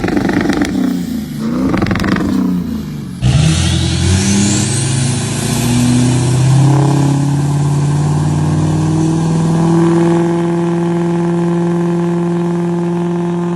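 GM L5P 6.6 L Duramax V8 turbodiesel pickup revving up and down twice. After a cut, it revs up with a rising turbo whistle and holds a steady high rev.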